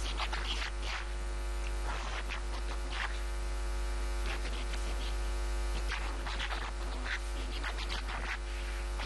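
Steady low mains hum with scattered scratchy noises over it.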